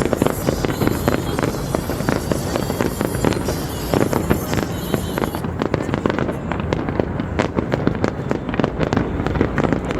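Dense, continuous fireworks barrage: rapid, overlapping bangs and crackles with no pause, sounding duller from about halfway through.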